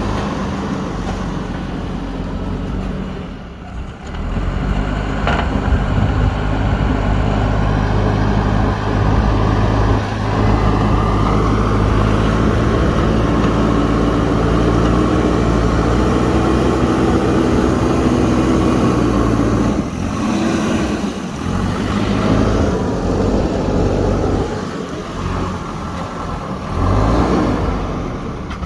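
JCB 3DX backhoe loader's diesel engine running hard at a steady pitch while it digs, with a brief dip a few seconds in. It eases off and turns more uneven for the last several seconds.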